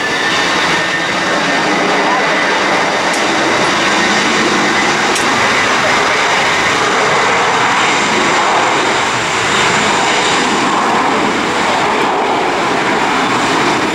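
Spirit Airlines Airbus A320's jet engines running as the airliner moves along the runway: a loud, steady noise with a thin high whine over it.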